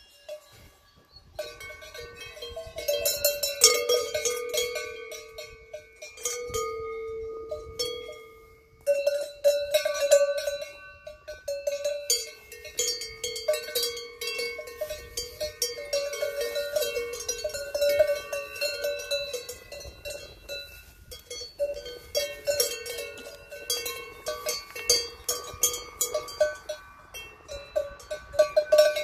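Large brass cowbells on the leather collars of grazing cows clanging irregularly as the cows move their heads. At least two bells of slightly different pitch ring over each other.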